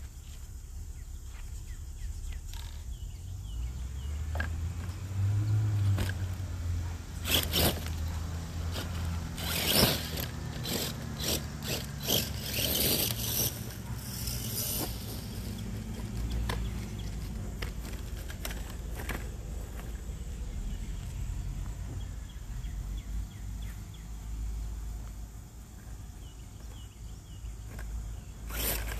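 Radio-controlled mud truck (a modded Gen 7 Pro) driving through weeds and dirt, its motor and gears whirring, with scraping and a string of sharp clicks and knocks, thickest between about 7 and 15 seconds in.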